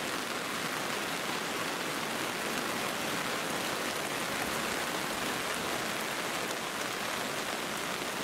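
Steady rain falling, an even hiss that holds unchanged.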